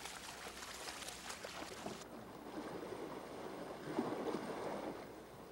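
Water splashing and sloshing, busy and crackly for about two seconds, then softer with a swell about four seconds in.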